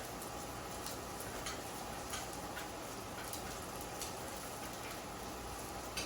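Faint stovetop cooking sounds: a steady hiss with scattered small pops and ticks, from chicken nuggets frying in a pan and homemade ketchup being stirred in a pot.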